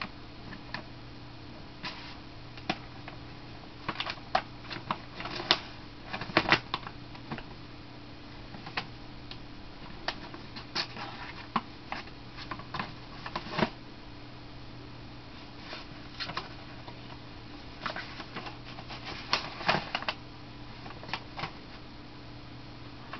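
Paper crinkling and rustling as a cat paws and bites at a sheet feeding out of an inkjet printer, in irregular flurries of crackles and clicks over a steady low hum.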